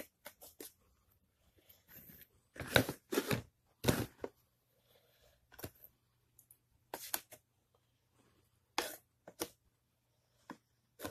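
Irregular clicks, taps and rustles from handling a plastic strainer and feeder bowls full of calcium-dusted superworms, with a handful of louder knocks.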